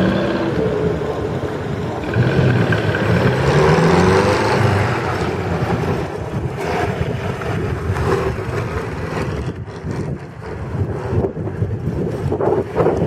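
Small vintage sports car's engine revving up and down as it pulls away and manoeuvres at low speed, with wind buffeting the microphone.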